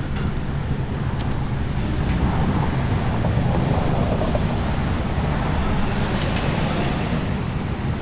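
Low, steady road-traffic noise with wind on the microphone, swelling a little in the middle. No siren is sounding.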